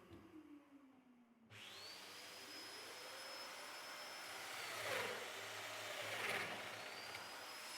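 Domino joiner motor winding down, then switched on again and spinning up to a steady high whine. Its cutter plunges into the wood twice, a few seconds in and about a second later, the whine sagging under the load and then picking up again.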